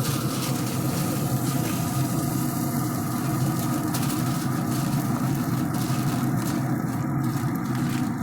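A steady low motor hum at an even level.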